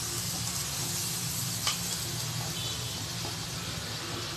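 Sugar and a little water sizzling and bubbling in a hot non-stick frying pan, the first stage of making caramel. A single light tap sounds about a second and a half in.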